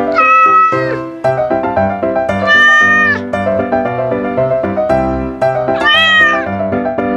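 A kitten meowing three times, high-pitched calls at the start, about two and a half seconds in and about six seconds in, over background music.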